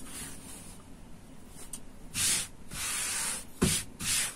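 Fabric rustling and swishing as a length of cloth is laid on a cutting table and smoothed flat by hand: four short swishes in the second half.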